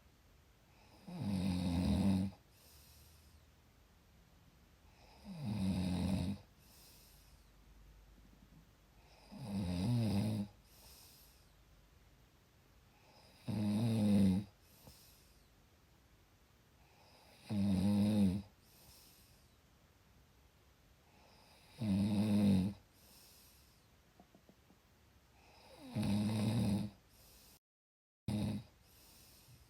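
Snoring in a slow, even rhythm: seven rattling snores about every four seconds, each a little over a second long, each followed by a fainter breath. Near the end the sound cuts out completely for about half a second.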